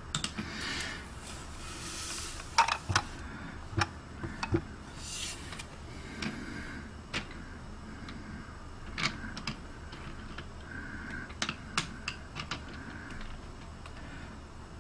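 Irregular light clicks and taps, several close together, with a few short scratchy rustles: small objects being handled on a desk.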